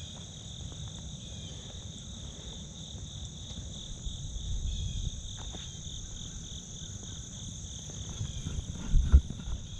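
Steady chorus of crickets and other insects trilling on two high pitches, over a low rumble. A couple of sharp thumps come near the end.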